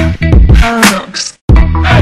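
Theme music with strong drum hits over a deep bass. It drops out for a moment about one and a half seconds in, then comes straight back.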